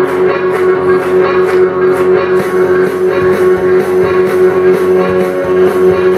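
Loud rock music with guitar over a steady beat and a long held note underneath.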